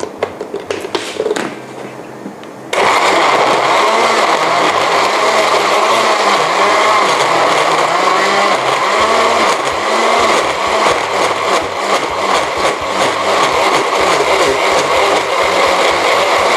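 Electric countertop blender with a few light clicks, then switched on about three seconds in and running loud and steady, blending cooked fish and coconut milk until fine.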